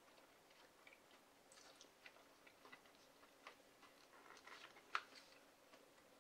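Faint clicks and short scrapes of a metal spoon digging into cheesy rice gratin in its container. One sharper click, about five seconds in, stands out from the rest.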